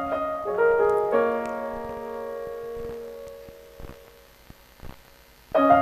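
Slow piano music: a few notes played one after another in the first second are left to ring and fade away. A new phrase begins near the end.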